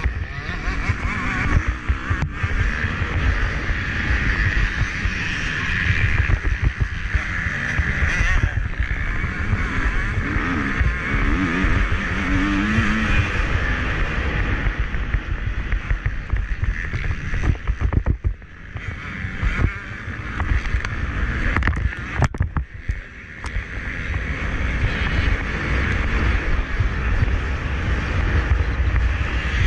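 Motocross bike engine running hard during a race, heard through a GoPro's microphone under heavy wind noise. The sound drops away briefly twice past the middle, then picks up again.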